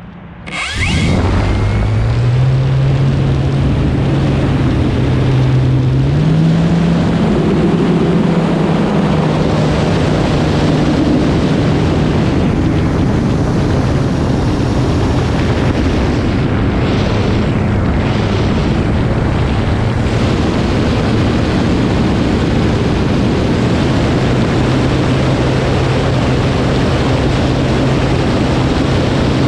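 Electric motor and propeller of a Night Timber X RC plane spooling up from rest about a second in, then running hard through takeoff and flight, heard from a camera mounted on the fuselage. The motor tone steps up in pitch around two and six seconds in and then holds steady, over a loud rush of prop wash and air.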